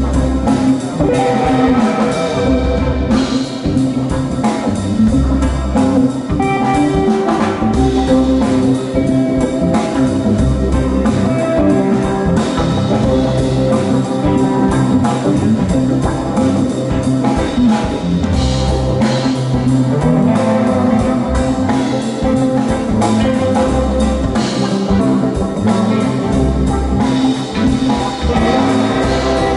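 A live band playing on stage: drum kit, electric guitars and keyboard together in a steady, full passage.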